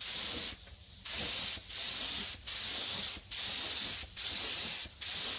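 HVLP spray gun hissing as it sprays paint, in a run of short passes with the trigger let off briefly about every three-quarters of a second; the hiss drops lower for about half a second near the start.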